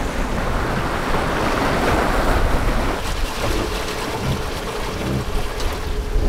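Seawater rushing and splashing along the hull of a sailing yacht under way in rough seas, with wind buffeting the microphone. The rush of water swells through the first few seconds.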